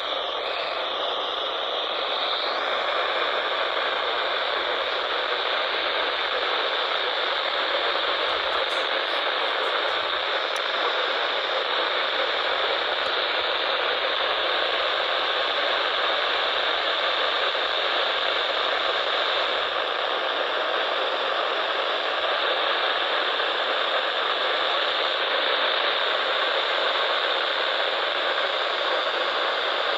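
Radio static: a steady, even hiss from a radio receiver picking up no clear signal.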